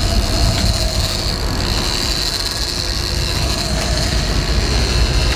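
Sportfishing boat's engines running steadily while the boat moves, with water rushing in the wake.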